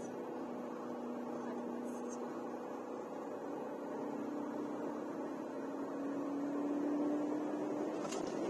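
Beijing BJ212 T01 off-roader's engine droning under load on a sand-dune climb, its note rising slowly in pitch and getting louder over the last couple of seconds. A couple of faint clicks are heard.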